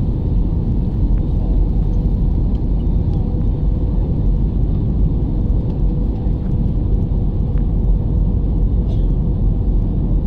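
Jet airliner cabin noise in flight: a steady, loud rumble of engines and airflow heard from a window seat, with a faint steady hum running through it.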